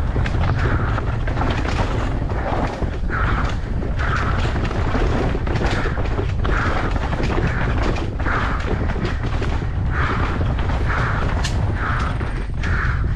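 Mountain bike ridden fast down a rooted dirt trail: heavy wind buffeting on the camera's microphone, with the bike rattling and knocking over roots and bumps, and a rushing noise that swells roughly once a second.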